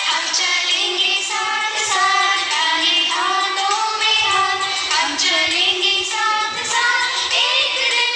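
An Indian prayer song: high voices singing a melody over instrumental backing.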